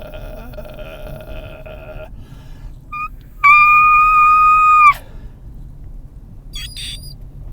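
A man's voice making noises: a steady mid-pitched hum, then a short high squeak, then a loud, shrill held falsetto note of about a second and a half that cuts off abruptly. A low car-cabin rumble sits underneath.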